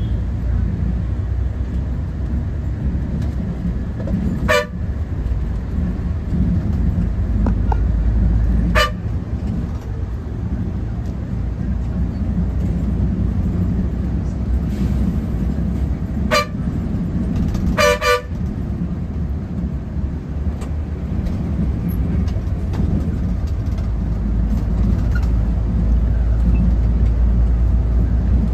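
Bus engine and road noise rumbling steadily, with short vehicle-horn toots four times, the last a quick double toot.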